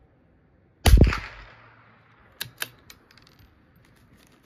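A single shot from a bolt-action .22 LR target rifle, a sharp crack with a short echoing tail. About a second and a half later come two quick sharp metallic clicks and a few fainter ticks, the bolt being worked.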